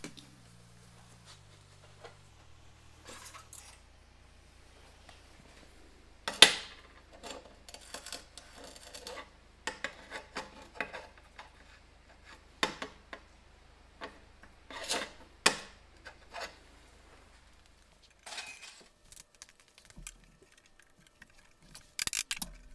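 Metal parts and tools being handled during assembly: scattered clinks, knocks and rubbing, the loudest knock about six seconds in. A low hum steps down in pitch over the first few seconds, then holds steady until it stops about eighteen seconds in.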